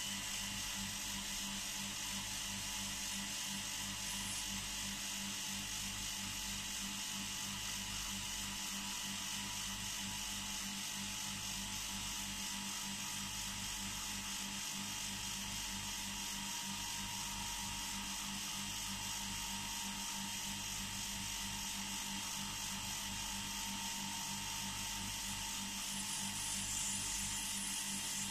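Vacuum pump running with a steady buzz and a few steady tones, holding a plasma chamber near 1 pascal while a flyback-powered discharge glows inside. The upper hiss rises slightly near the end.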